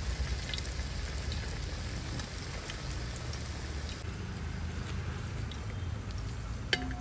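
Onion fritters deep-frying in hot coconut oil: a steady sizzle with scattered small crackles. Near the end a wire-mesh skimmer clinks once against the metal pan, leaving a brief ringing tone.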